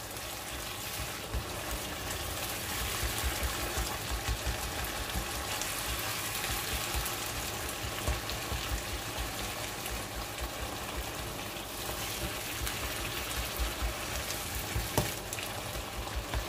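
Tomato sauce frying in olive oil in a pan, sizzling steadily.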